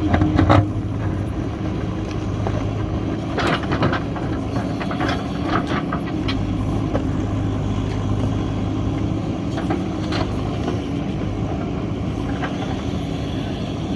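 JCB 3DX backhoe loader's diesel engine running steadily under work, with scattered short knocks and clatters as it digs.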